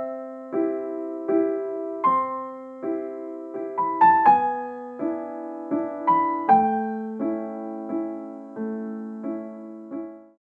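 Soft piano music for the intro: a chord struck about every three-quarters of a second, each left to ring and fade. It stops shortly before the end.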